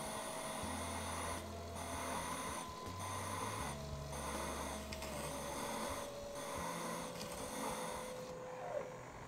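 Drill press motor whining while a diamond core bit grinds into a water-cooled stone slice. The grinding breaks off and resumes about once a second, and the whine drops in pitch in small steps; a short click comes near the end.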